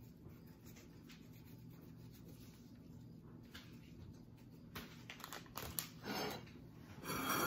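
Low steady room hum, then from about two-thirds of the way in a few faint rustles and small clicks as a paper seasoning packet is handled while powder is sprinkled over vegetables in a stainless stockpot.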